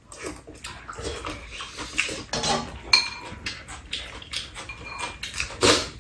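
Two people eating noisily, chewing and slurping a spicy baby-octopus and noodle stew, with metal spoons and chopsticks clicking against the bowls and tray. A short ringing clink about three seconds in; the loudest slurp comes near the end.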